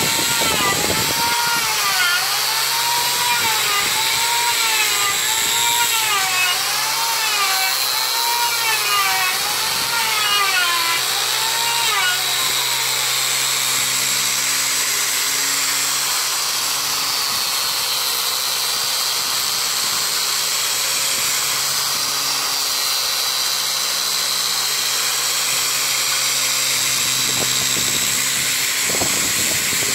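Electric angle grinder with a sanding disc running steadily as it sands a hardwood jackfruit door, its tone wavering up and down about once a second for the first dozen seconds before it settles.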